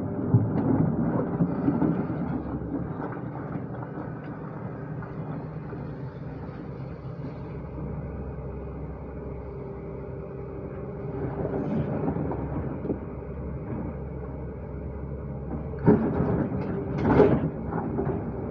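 Diesel engine of a JCB digging machine running steadily, rising in level three times as it works under load, with a sharp knock near the end.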